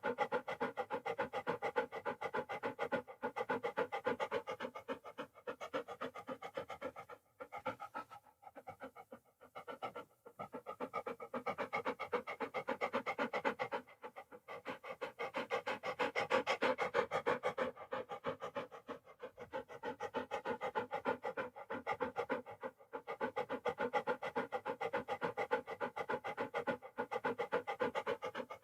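Dog panting fast in an even rhythm of short in-and-out breaths, pausing briefly a few times.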